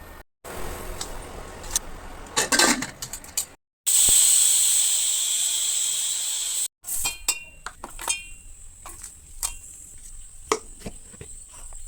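Cooking sounds in several short cut clips: a metal spoon clinking and scraping in a pot, then about three seconds of steady sizzling hiss, then scattered clinks of utensils against cookware.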